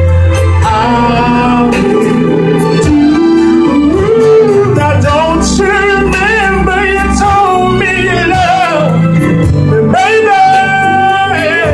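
A man singing into a microphone over backing music, with long held notes that waver in pitch above a steady bass line.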